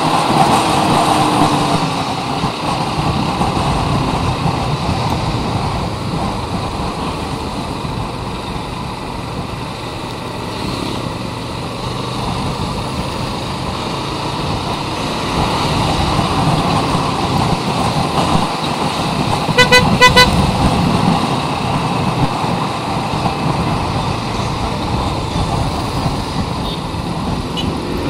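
Motorcycle running along the road, its engine and road noise rising and easing. About twenty seconds in, a vehicle horn gives a quick series of short beeps.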